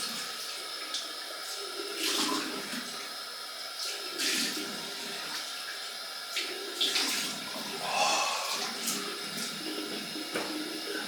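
Cold water running from a tap into a sink, with several splashes as water is scooped onto the face for a cold rinse after shaving. The running water stops at the end.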